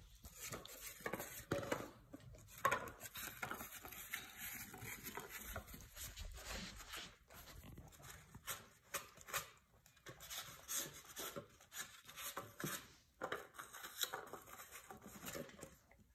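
Husky licking and lapping food from a foam bowl: a fast, irregular run of wet tongue smacks and clicks, with the light bowl knocking and sliding as it is pushed along the floor.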